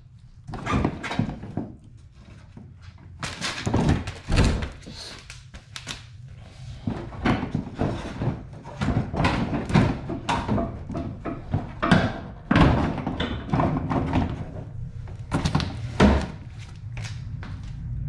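The plastic front bumper cover of a 2015 Kia Optima is worked loose and popped out of its retaining clips, giving an irregular run of thunks and knocks with a steady low hum underneath.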